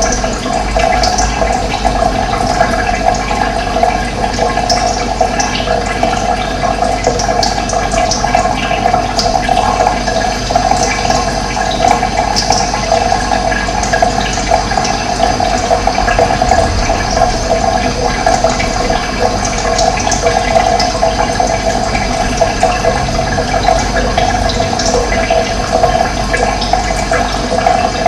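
Running water rushing steadily, with occasional short high chirps of birds over it.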